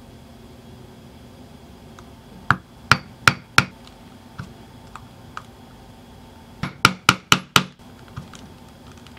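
Sharp taps during hand leatherwork on a wallet strap: two runs of four quick knocks about a third of a second apart, with a few lighter clicks between them.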